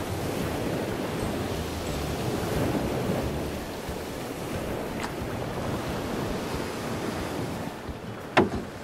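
Sea waves washing in a steady rush, with some wind. A single short, sharp knock sounds near the end.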